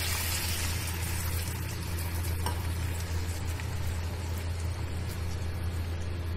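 Onion-and-sauce mixture sizzling in a hot frying pan as water is poured in for the gravy, the hiss easing after the first second or two. A steady low hum runs underneath.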